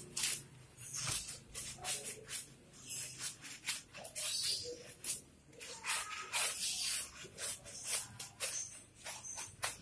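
A soapy sponge scrubbing a wet boxer dog's lathered coat: quick, irregular rubbing and squishing strokes, one after another.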